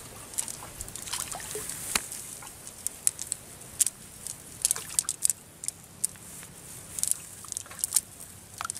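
A wet cast net being handled as fish are picked out of it: irregular drips and trickles of water with small sharp crackling ticks from the mesh.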